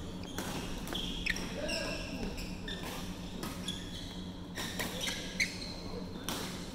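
Badminton rackets striking a shuttlecock in sharp, irregular clicks, with sneakers squeaking on the court mat. A steady low hum and distant players' voices run underneath, echoing in a large hall.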